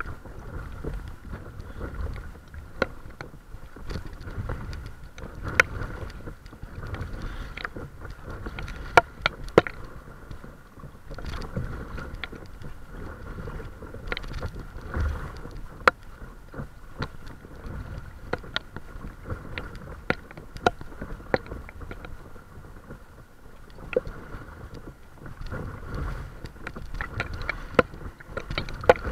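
Water sloshing and slapping against the hull of a paddle craft under way, a low rumble broken by many irregular sharp splashy clicks, with a faint steady high hum underneath.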